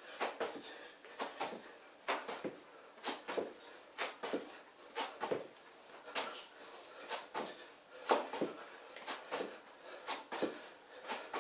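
Feet in trainers landing on a foam exercise mat during jumping split lunges: pairs of quick thuds, about one pair a second.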